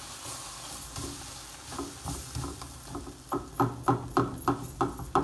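Silicone spatula stirring and scraping a thick ketchup-and-flour paste around a nonstick frying pan, over a light sizzle. The strokes come about three a second and grow louder over the last two seconds.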